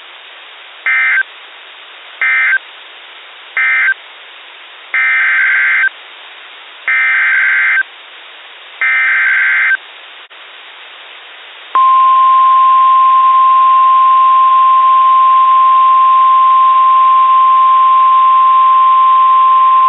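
Emergency Alert System SAME data bursts on NOAA Weather Radio: three short bursts of warbling digital tones close the previous warning, then three longer bursts carry the header of the next alert. About twelve seconds in, the steady 1050 Hz Weather Radio warning alarm tone starts; it is louder than the bursts and holds for about nine seconds.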